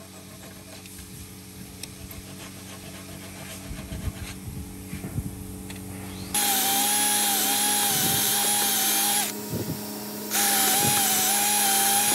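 A hand saw flush-cutting wooden dowels with a few soft strokes. Then a cordless drill bores into a wooden plank, running steadily with a whine for about three seconds, stopping for a second, and running again for about two seconds.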